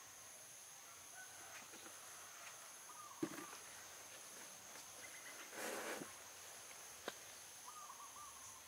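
Faint outdoor ambience: a steady high-pitched insect drone, with one of its two tones pulsing, and a bird calling briefly twice. A short rustle comes about halfway through, and there are a couple of soft ticks.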